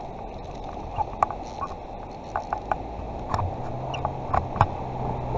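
Steady rush of the river flowing below, with scattered light clicks from the spinning rod and reel being handled. About two-thirds of the way through, a vehicle's low steady engine hum comes in.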